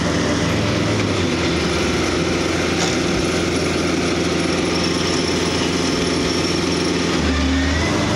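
Compact tractor engine running steadily, with an even drone and no change in speed.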